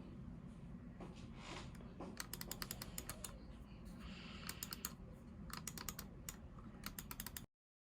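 Typing on a Logitech MX Mechanical Mini mechanical keyboard: several bursts of rapid key clicks with short pauses between, over a low steady hum. The sound stops abruptly near the end.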